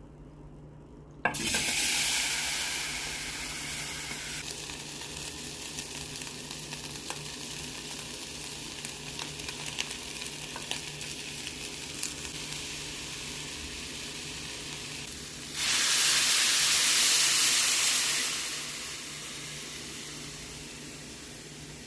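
Chicken stir-fry sizzling in a hot pan. Food hits the hot oil about a second in with a loud sizzle that eases to steady frying with small crackles. A second loud burst of sizzling comes about 15 seconds in, lasts some three seconds, then dies back to a steady sizzle.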